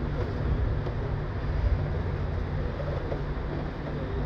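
Melbourne W class heritage tram standing still, heard from inside its driver's cab: a steady low rumble with a faint regular pulsing about twice a second.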